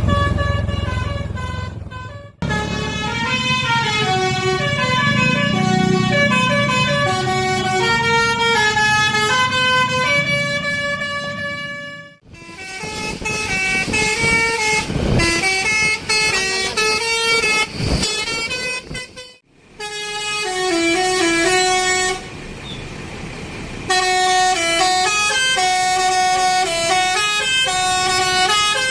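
Basuri 'telolet' multi-tone musical air horns on Indonesian buses playing quick melodies of stepped notes. Several horn clips follow one another, each cut off abruptly.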